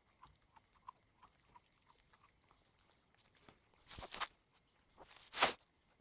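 Puppy chewing raw chicken on the bone, with soft small chewing clicks and then two louder crunches, one about two-thirds of the way in and the loudest near the end.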